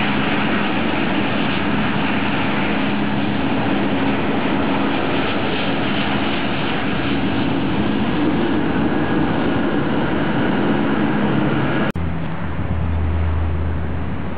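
Twin-engine widebody jet airliner landing: steady jet engine noise with a held hum as it comes over the runway and touches down. About twelve seconds in the sound breaks off abruptly and a deeper low rumble takes over.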